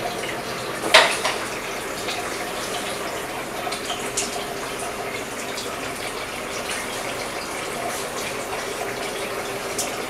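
A sharp click about a second in, from handling the electric rice cooker, over a steady rushing hiss.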